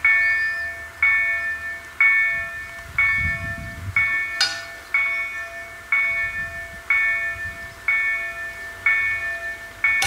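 Level crossing warning bell striking about once a second, each strike ringing with several tones and fading before the next, signalling an approaching train while the barriers come down. A single sharp click about halfway through.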